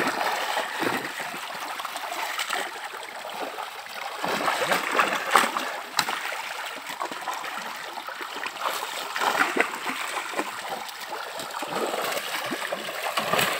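Water churning and splashing as large fish crowded into a drawn seine net thrash in shallow pond water. The splashes are louder about five seconds in and again near the end.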